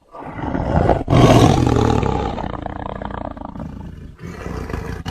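Tiger roaring: a loud, rough roar that peaks about a second in and fades over the next few seconds, with short breaks about one and four seconds in.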